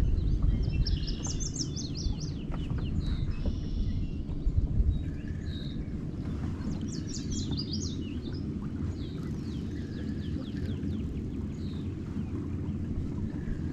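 A steady low rumble of wind on the microphone, with a songbird singing twice, each time a quick run of falling notes, about a second in and again about seven seconds in, plus a few short chirps between.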